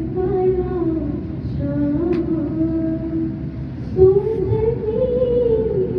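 A solo female voice chanting a salam, a devotional lament, in long held notes. The line breaks briefly about one and a half seconds in, and the pitch steps up about four seconds in.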